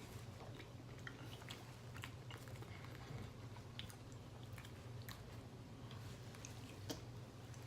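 Faint chewing and small mouth clicks from a man eating a boiled egg dipped in garlic butter, over a steady low hum.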